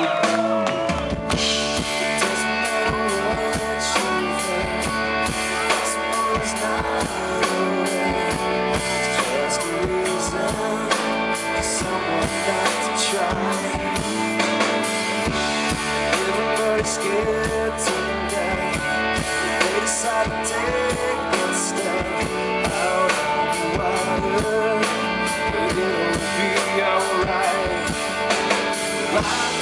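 Rock band playing live through a PA, with a driving drum kit, electric guitars, bass guitar and keyboard, in an instrumental stretch of the song.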